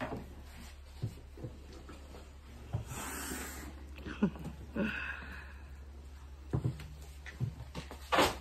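Monocled cobra being pinned and handled on a table: scattered soft knocks of the hook and the snake's body against the mat and wood, with a breathy hiss about three seconds in and another short one near the end.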